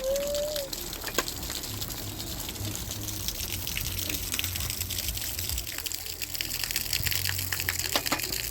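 Water gushing steadily, with a scatter of sharp drips and splashes through it.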